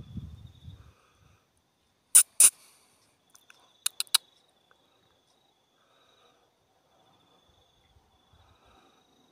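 A faint, high insect trill comes and goes, broken by two loud, sharp clicks about two seconds in and a quick run of three more clicks about four seconds in.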